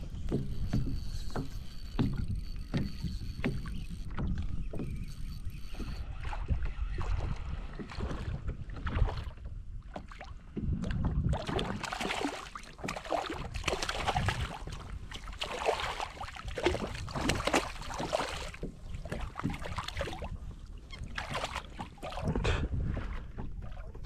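Knocks and thumps of gear and hull on a fishing kayak, then, about halfway through, a hooked fish splashing and thrashing at the surface beside the kayak for several seconds.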